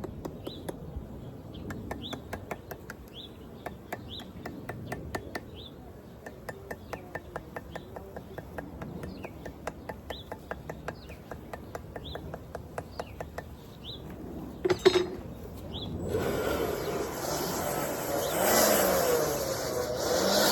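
Light, rapid tapping on the wooden hive box, several taps a second, while a small bird chirps a short rising note about once a second. Two loud knocks come near three-quarters of the way through, then a louder, wavering hum takes over.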